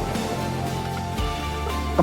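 Background music with steady sustained notes and a low bass line.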